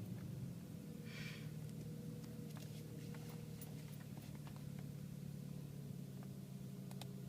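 BMW 335i engine idling steadily after a throttle blip, with a brief hiss about a second in.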